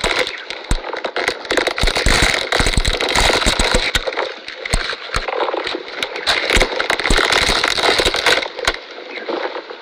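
A camel chewing cactus: a dense, continuous run of crunching and crackling as the cactus is crushed between its teeth.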